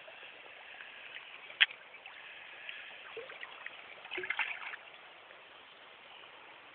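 Shallow stream water flowing over the gravel, with a single sharp click about a second and a half in and a short spell of splashing about four seconds in as a landing net is dipped into the water to land a trout.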